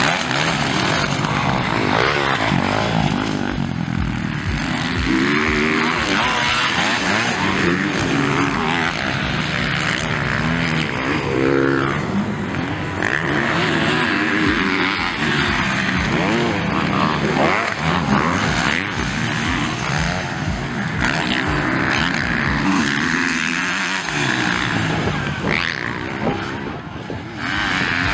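Several motocross bikes' engines revving hard and easing off as they race around the dirt track, their pitch rising and falling again and again with throttle and gear changes.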